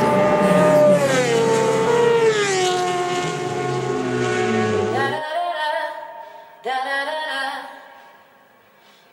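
Racing motorcycle engines at high revs passing close by, the pitch dropping as they go past. The sound cuts off about five seconds in, and a shorter engine burst follows before it fades out.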